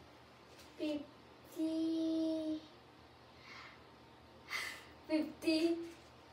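A girl's voice: a short vocal sound about a second in, then a single sung note held for about a second, and a few excited exclamations near the end.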